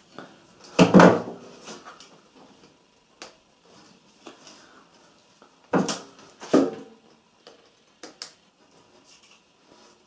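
Knocks and rattles of hands handling a washing machine's plastic pressure switch and its hose and clip inside the cabinet. The loudest comes about a second in, two more follow near six seconds, with a lighter tap or two later.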